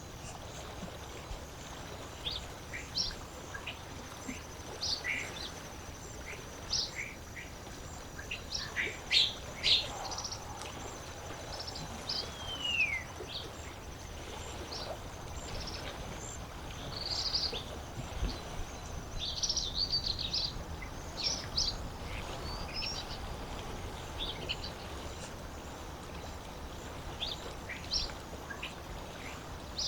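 Wild birds chirping and calling at a lake, many short, sharp calls scattered throughout, with one downward-gliding whistle about twelve seconds in, over a faint, steady background hiss of open-air ambience. A thin, high, steady buzz runs under the calls through the first half.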